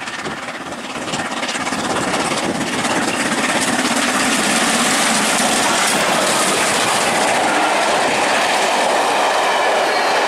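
LMS Stanier Black Five steam locomotive 44871 passing at speed, followed by its train of coaches clattering over the rail joints. The sound builds over the first three seconds as the train draws near, then holds steady and loud.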